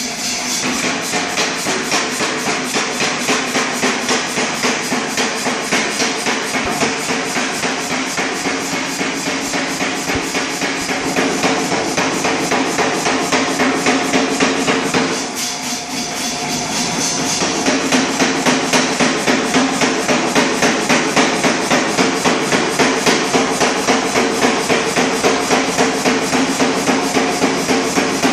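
A 100 lb Reiter air hammer forging a glowing bar of 1045 steel, its ram striking in rapid, even blows, about three a second. There is a short lull about halfway through before the blows resume.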